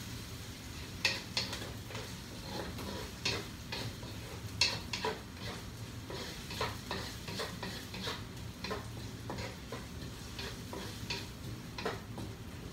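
Chopped onions sizzling in oil in a wok, stirred with a wooden spatula that scrapes and clicks against the pan at irregular intervals, with a few louder knocks.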